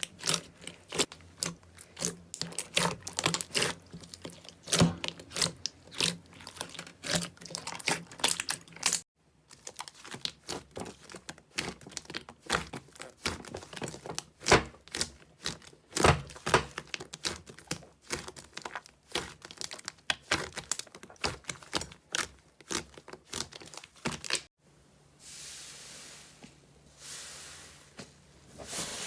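Slime being squeezed and worked by hand, giving fast, irregular crackling and clicking pops. The sound cuts off sharply twice. Near the end it gives way to two soft hissing swells before the clicking returns.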